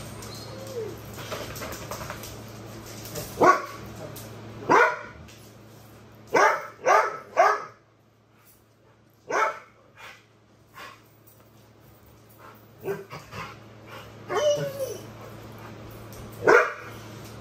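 A young Rottweiler barking in short, sharp barks, about eight of them, three in a quick run about halfway through, with a couple of brief whines between them.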